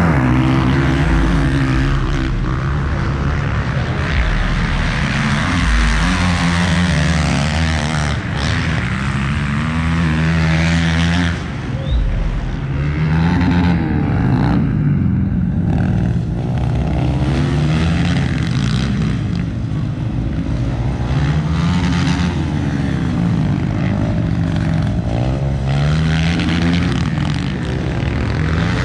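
Motorcycle engines revving, their pitch rising and falling over and over in overlapping waves a second or two long.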